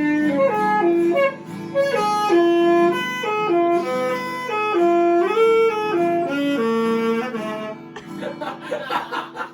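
Saxophone played by a beginner: a run of held notes stepping up and down about every half second, stopping about eight seconds in.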